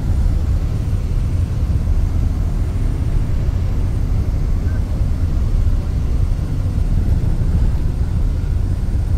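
Steady low rumble of a bus's engine and tyres on the road, heard from inside the passenger cabin.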